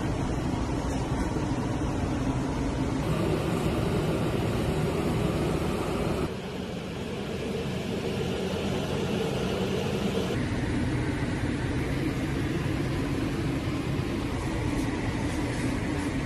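Steady background hum of a working kitchen, its tone shifting abruptly about three, six and ten seconds in.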